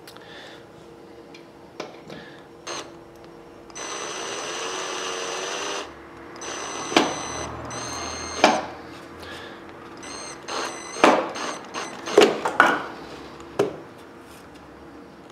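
Drill-driver motor whining in short runs as it drives a screw into a UX6 drywall plug in plasterboard: one run of about two seconds, then shorter ones, with sharp clicks and knocks in between. The plug twists and bunches up behind the board as the screw tightens.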